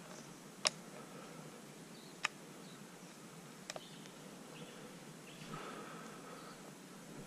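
Quiet bushland ambience broken by three short, sharp clicks about a second and a half apart, the last a quick double click.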